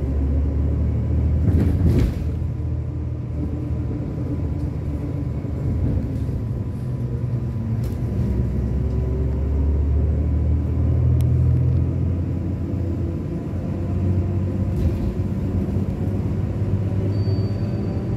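City bus's engine running and road noise heard from inside the cabin as the bus drives along, a low rumble that swells and eases. A sharp knock or rattle about two seconds in.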